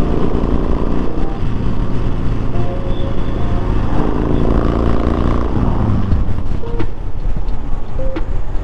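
Cruiser motorcycle riding at highway speed: its engine runs steadily under wind and road noise.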